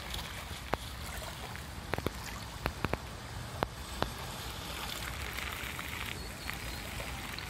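Small waves lapping on a pebbly lake shore with wind rumbling on the microphone, and a scatter of sharp clicks between about one and four seconds in. A brighter hiss of water rises briefly about five seconds in.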